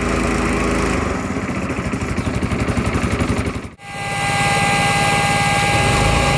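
Honda GX160 single-cylinder engine running a wheelbarrow air compressor's two-cylinder pump. After a cut about four seconds in, the engine runs on steadily while a blowgun releases air with a hiss and a thin, steady whistle, the compressor taking up the load as the air is used.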